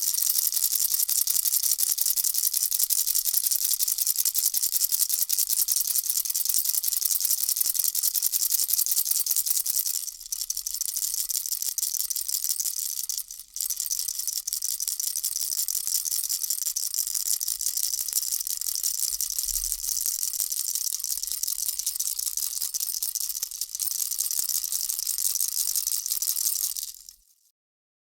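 Baby rattle shaken steadily, a dense, high, rapid rattling of small pellets. It falters briefly about ten and thirteen seconds in, and fades out to silence near the end.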